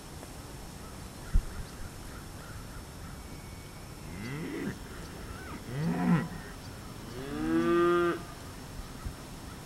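Cattle mooing: three calls a second or so apart, the last the longest and loudest. A short low thump comes about a second in.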